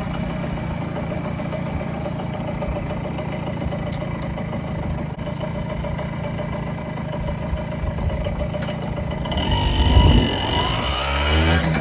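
Yamaha YB-1 moped's small single-cylinder engine idling steadily, then revving up with rising pitch about ten seconds in as it pulls away.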